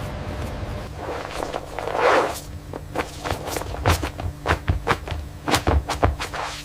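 A quick, irregular series of sharp knocks and clicks, with a noisy swish about two seconds in, over a steady low hum.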